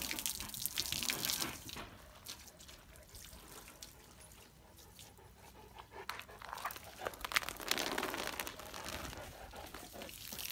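Water splashing and running while a Cane Corso is bathed. It comes in two spells, over about the first two seconds and again from about six seconds in, with a quieter gap between.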